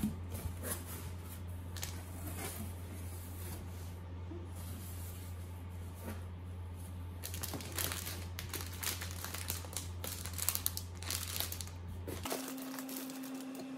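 Cardboard box flaps being opened and plastic-wrapped bedding packages handled: scattered rustling and crinkling, busiest in the second half, over a steady low hum. Near the end the hum gives way to a steady higher tone.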